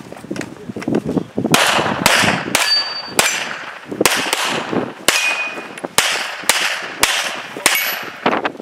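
A steady string of about a dozen handgun shots, roughly two a second, starting about a second and a half in; several are followed by the brief ring of a struck steel target.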